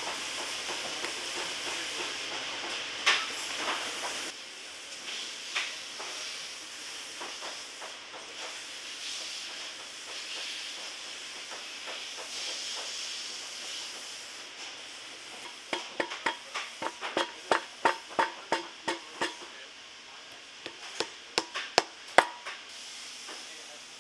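Bootmaking hand work on a leather boot bottom over a steady background hiss: a few scrapes and clicks of a hand tool on the welt, then a quick run of sharp taps at about four a second, and a few louder taps near the end.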